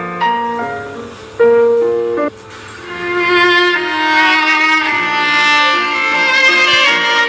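Samsung Galaxy A55 ringtones playing: a tune of short, separate notes cuts off about two seconds in, and after a brief gap a new ringtone begins, a melody of long held notes.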